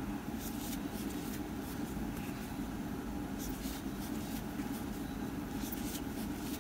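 Faint soft scratching and rustling of yarn drawn through with a metal crochet hook while half double crochet stitches are worked, a few light strokes scattered over a steady low hum.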